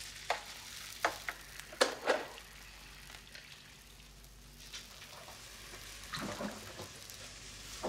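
Light clinks and taps of kitchen utensils and dishes on a counter: a few sharp ones in the first couple of seconds, softer ones later.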